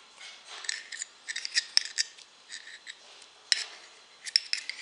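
Irregular light clicks and short scrapes of a metal pipe tool working against a Zippo lighter's metal insert as cotton packing is pushed back in around the new wick; the sharpest clicks come about two seconds in, then near three and a half and four and a half seconds.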